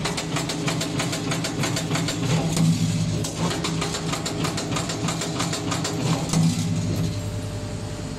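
CNC servo-driven 2D wire bending machine running as it forms iron wire into U shapes: a steady motor hum under rapid metallic clicking. Both ease off about seven seconds in.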